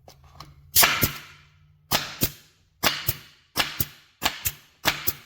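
AEROPRO 7116A 22-gauge pneumatic stapler firing staples into maple in quick succession. Six shots, each a sharp double snap, about one every two-thirds of a second.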